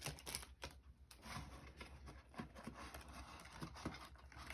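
Faint rustling and light clicks of Pokémon trading cards being handled and laid down.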